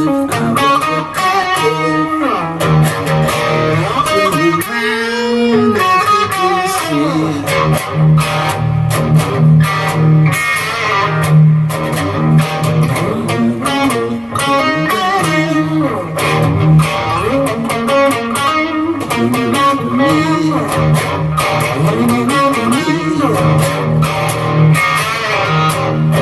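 Electric guitar, a 1999 Epiphone Les Paul Special II with DiMarzio humbucking pickups, playing a blues riff with string bends through an amp modelling a clean Fender Twin Reverb. The guitar volume is full up, which gives an overdriven crunch.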